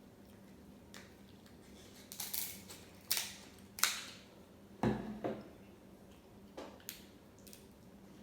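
Close-miked eating sounds from a seafood boil mukbang: an irregular run of sharp wet mouth smacks and crunches, about eight of them, loudest around the middle.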